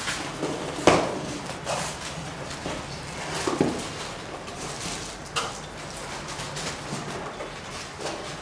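A long cardboard packing box and a plastic-wrapped roll of projection-screen fabric being handled: rustling with a few scattered knocks, the sharpest about a second in.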